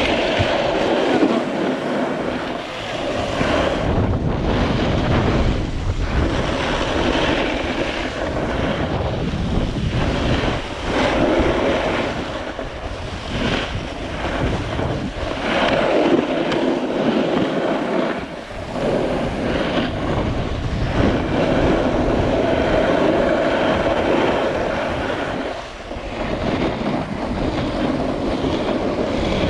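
Wind rushing over an action camera's microphone while skiing fast down a groomed piste, mixed with skis scraping and hissing over the snow. The noise swells and dips several times.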